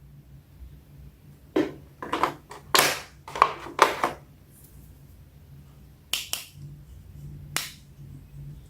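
Plastic action figure and its packaging being handled: a series of short plastic clicks and crinkles in two clusters, over a faint steady low hum.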